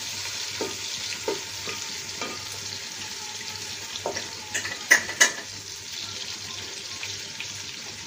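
Sliced onions sizzling in hot mustard oil in a large aluminium pot, being fried until they turn red-brown, with a wooden spatula scraping through them. Two sharp knocks come about five seconds in.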